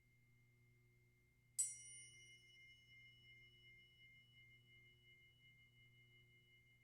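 A small metal chime struck once about a second and a half in, with a bright attack whose high overtones fade quickly while two clear tones keep ringing and slowly die away. Under it runs a faint steady low hum.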